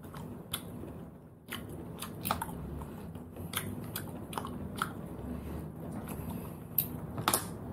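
Cooked snail shells clicking and clinking against each other and the plate as they are picked through by hand, with chewing. The clicks are scattered and irregular, with a few louder ones near the end.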